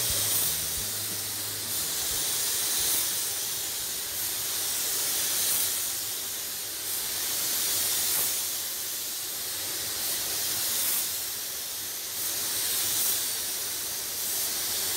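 Compressed-air paint spray gun hissing as it sprays paint. The hiss swells and eases with each pass, about every two and a half seconds.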